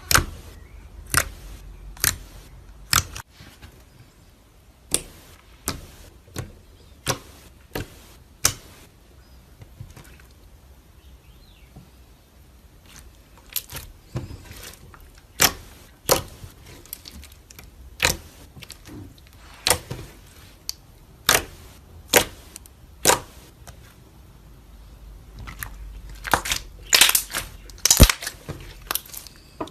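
Slime being handled: a run of sharp pops and clicks, roughly one a second, with a quieter stretch midway and a quick cluster of pops near the end.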